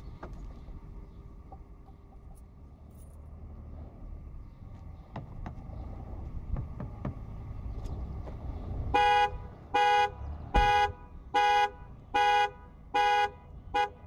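Skoda Superb 3's factory alarm sounding through the car's own horn: about nine seconds in, a string of seven short horn blasts begins, a little faster than one a second, the last one cut short. The alarm has been tripped by a door being opened from the inside.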